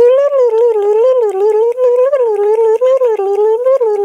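A woman humming a wordless tune in a high voice without a break, the pitch wavering up and down, as the music for a game of musical chairs. Light clicks of small plastic toy figures tapped on a tabletop run through it.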